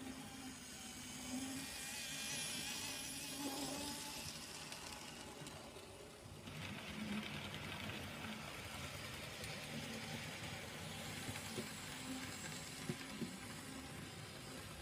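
Model railway locomotive running on its track: a faint, steady whirr of the small electric motor and the wheels on the rails.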